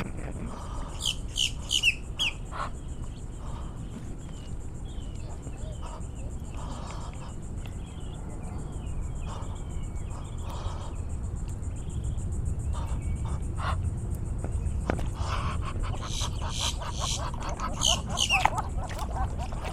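Bird chirping: quick runs of short, high calls with falling notes, about a second in and again near the end. A steady high insect drone and a low outdoor rumble run underneath.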